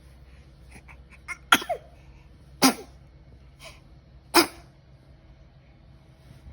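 A baby sneezing three times, short sharp sneezes spread over about three seconds, with a few fainter short breaths and snuffles around them.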